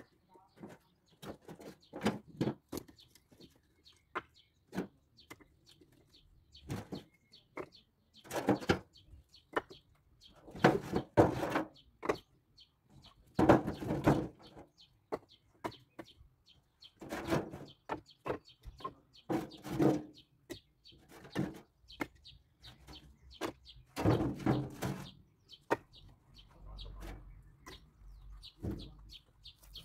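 Firewood logs knocking and clunking against each other as they are handled and stacked, in irregular knocks with several louder clattering bunches.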